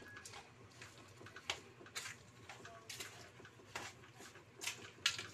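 A bare hand mixing grated taro with sugar and ground peanuts in a stainless steel bowl: short soft scrapes and taps of the fingers against the metal, about two a second.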